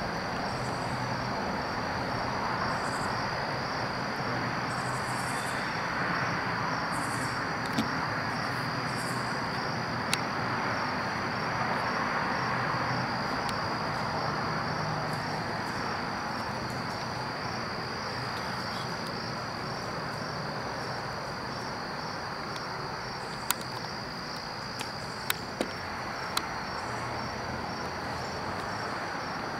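Crickets chirping in a steady, rapidly pulsing high trill over a constant hiss, with a few sharp clicks near the end.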